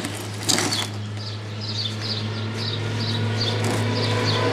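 A small bird chirping repeatedly, short high calls about two or three a second, over a steady low hum. A rising rush of noise near the end, like a car approaching.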